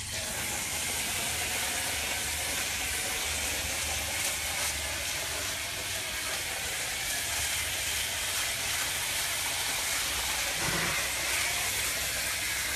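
Hose-end foamer sprayer (Weaver Pro foamer) hissing steadily as it blasts shampoo foam onto a dry heifer's coat.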